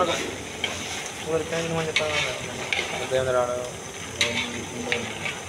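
Metal ladle stirring chicken curry in a large metal pot, with the contents sizzling and several sharp clinks of the ladle against the pot.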